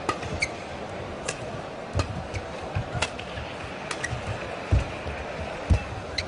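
Badminton rally: sharp racket hits on the shuttlecock about once a second, with heavy footfalls and lunges on the court floor, over a steady crowd murmur.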